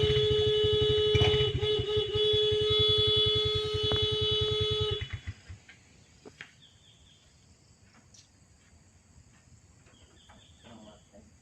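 Motorcycle horn held in one long steady blast over a fast low throb, cutting off suddenly about five seconds in. It is used as a call to bring cattle home to their pen. Afterwards there are only faint chirps.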